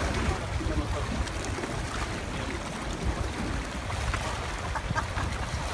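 Wind buffeting a phone microphone over sea water washing against shoreline rocks, with a few faint knocks in the second half.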